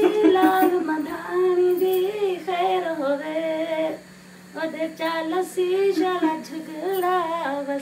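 A woman singing a few lines unaccompanied, holding long notes, with a short pause about four seconds in.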